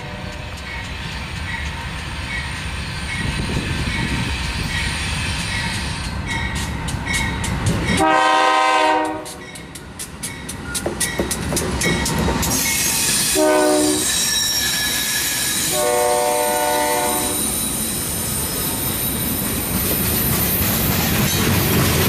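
A freight train led by GE diesel locomotives approaches and passes. The lead unit sounds its air horn long, short, then long, about eight, thirteen and sixteen seconds in, ending a grade-crossing horn signal. Under the horn the locomotives rumble by, followed by the steady rattle and clatter of freight cars rolling past.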